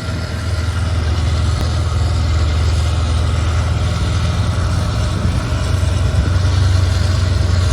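Vehicle engine running steadily: a low drone with a wash of noise over it, growing slightly louder in the second half.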